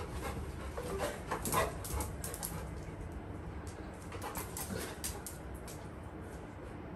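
Labrador retriever puppy whimpering as it jumps for a ruler held over its head, with sharp knocks and clicks of its paws in the first couple of seconds, then quieter.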